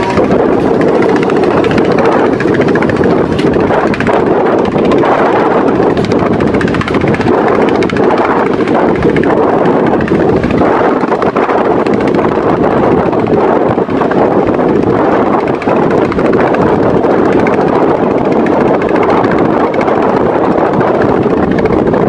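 A boat engine running steadily, mixed with heavy wind on the microphone and choppy water slapping.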